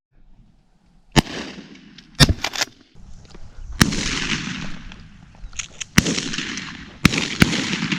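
Shotguns firing in a dove-hunting line: about seven sharp shots at uneven intervals, some close together, with a rushing hiss between them.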